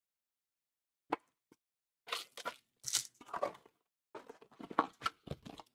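Trading-card packaging being handled and torn open: a run of short, irregular crinkling, tearing and crunching sounds of paper and plastic wrap, starting about a second in.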